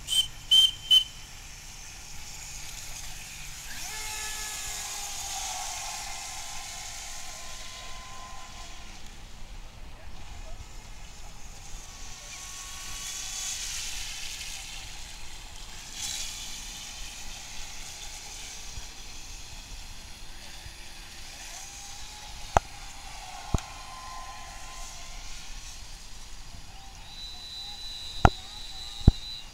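Radio-controlled model speedboat running at speed, a high motor whine with spray hiss that swells and fades as the boat passes. Sharp clicks come just after the start and a few more later.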